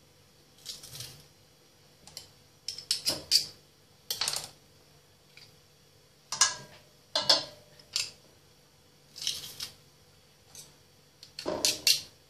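Metal garlic press being worked over a steel pot: about ten short clicks and scrapes of metal as garlic is squeezed through it, loudest near the end.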